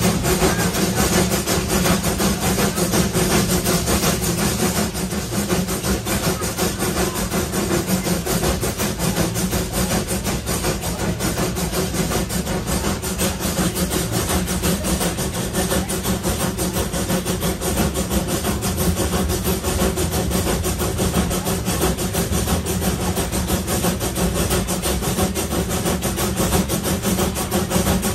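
Small vintage steam locomotive running under steam, a steady mix of exhaust beats and wheel-on-rail noise, heard from the coach directly ahead of it.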